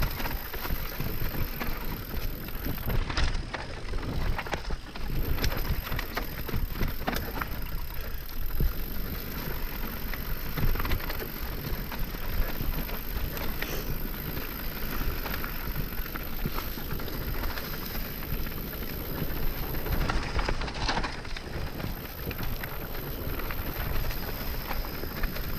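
Mountain bike descending a dirt trail on WTB Vigilante front and Trail Boss rear knobby tires: steady rolling and crunching of tires over dirt and rocks with a low rumble, and many quick clicks and rattles from the bike over rough ground.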